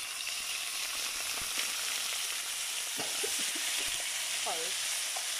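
Salmon cubes sizzling steadily in a hot frying pan with chili flakes, fish sauce and hot water, a spatula stirring them now and then.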